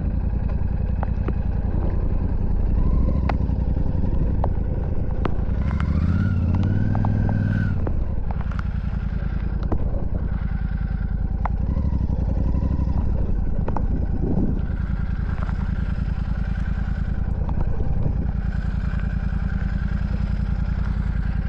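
Royal Enfield Super Meteor 650's parallel-twin engine running while riding, its pitch rising briefly about six to eight seconds in, with scattered sharp ticks over the steady engine note.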